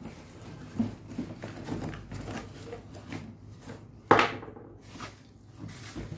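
Cardboard boxes and plastic wrapping being handled during unpacking: rustling and small knocks, with one sharp, loud knock about four seconds in as a small cardboard box is opened.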